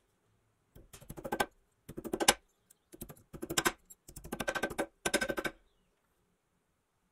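Small hammer tapping a painted metal toy propeller flat against a steel bench-vise anvil, in five quick runs of light, rapid metal-on-metal taps that build in loudness.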